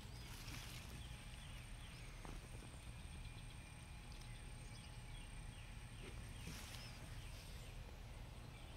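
Faint outdoor ambience: a steady low rumble, a thin steady high-pitched tone, and scattered faint short chirps, several in quick runs.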